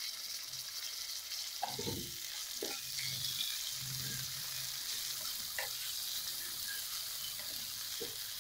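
Chopped tomato and onion frying in hot mustard oil in a kadai, a steady sizzle. A spatula scrapes and knocks against the pan a few times as the pieces are stirred.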